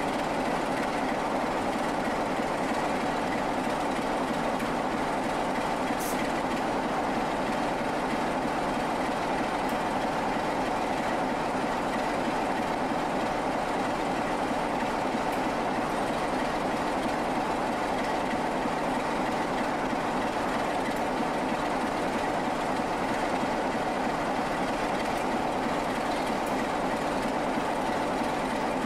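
Class 47 diesel locomotive's Sulzer twin-bank twelve-cylinder engine idling steadily while the locomotive stands at the head of its train. A single short click about six seconds in.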